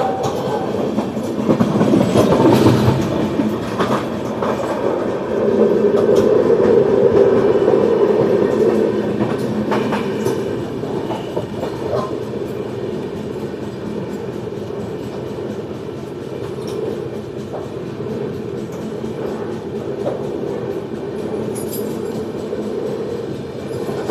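Train running along the track: a steady rumble of wheels on rails with occasional clicks over rail joints, swelling louder about two seconds in and again from about six to nine seconds.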